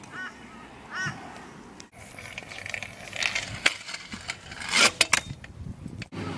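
Kick scooter wheels rolling on concrete, with several sharp clacks of the scooter striking the ground around the middle. Two short bird calls come near the start.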